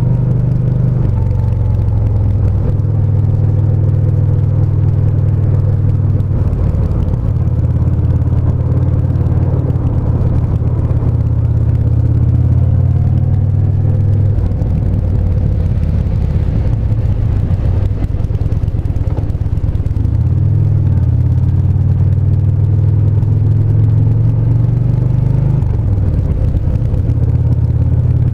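Yamaha SCR950's air-cooled V-twin engine running at low, in-town speeds. Its steady low note drops and picks up again several times as the throttle and gears change.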